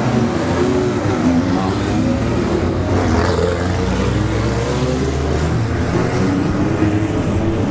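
Engines of several single-seater formula race cars running in the pit lane, revving and pulling away one after another, their pitch rising and falling as they go.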